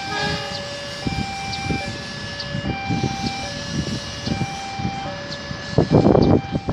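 A two-tone electronic warning signal alternates high and low about every three-quarters of a second, over the low rumble of an approaching diesel-hauled passenger train. A louder rush of noise comes about six seconds in.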